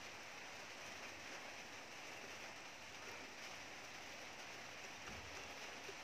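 Faint steady background hiss with no distinct sounds.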